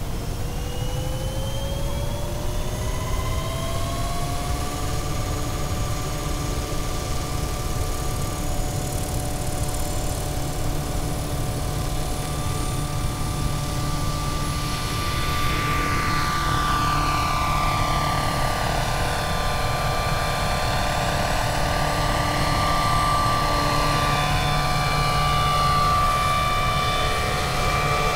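Electric scale RC helicopter (Vario Airwolf, 650 size) spooling up. The motor and gear whine rises for about four seconds, then settles into a steady whine over the rotor noise. Later, as it lifts off and flies around, the pitch sweeps down and up.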